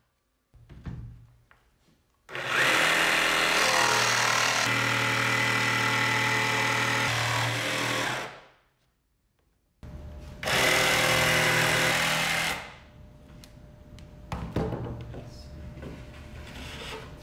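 Makita cordless jigsaw cutting through a plywood sheet: one long cut of about six seconds, a pause, then a second cut of about two seconds. After it stops, quieter knocks as the saw is set down and boards are handled.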